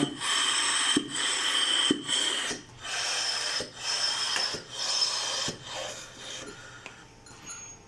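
Compressed gas hissing through a Siemens Servo 300 ventilator's circuit with the oxygen supply connected, broken by short pauses about once a second, with a thin high whistle in it during the first half. The hiss fades over the last couple of seconds.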